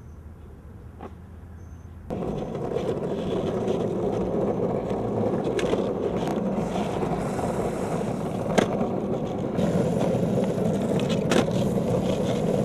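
Longboard wheels rolling on rough asphalt, a steady rumble that starts suddenly about two seconds in. Several sharp clacks of the board under the rider's feet, as it is spun and landed in shove-it tricks, break through the rumble.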